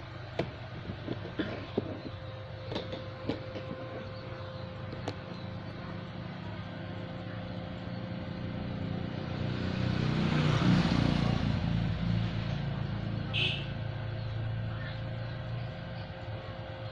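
A vehicle passing by: its noise swells to a peak about ten seconds in and fades again. A few sharp taps come in the first five seconds, over a steady faint hum.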